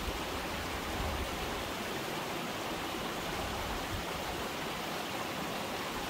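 Shallow mountain stream running over rocks and pebbles: a steady, even sound of flowing water.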